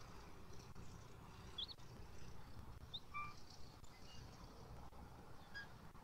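Faint outdoor ambience with a low steady rumble, broken by a few short, high bird chirps.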